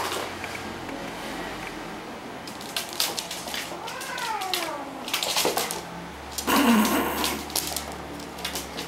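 Domestic cat yowling in a standoff: drawn-out calls that rise and then fall, around four to five seconds in, then a loud harsh burst about six and a half seconds in, with a few sharp taps between.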